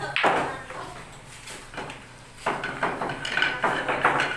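Pool balls clacking: a sharp cue strike and ball collisions right at the start, then from about two and a half seconds in a rapid run of clacks as the balls are gathered by hand into a plastic rack.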